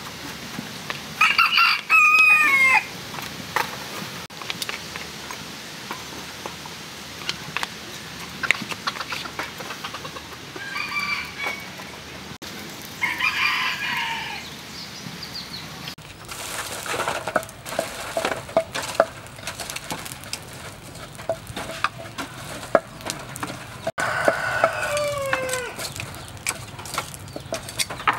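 A rooster crowing loudly about a second in and again near the end, with other short calls between, over scattered crackles and clicks from charcoal burning and being handled in the fire pit.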